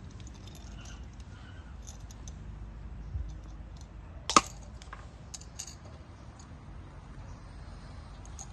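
Small metal air-line fittings handled while their threads are wrapped with Teflon tape: light scattered clicks and taps, with one sharp metallic click about four seconds in.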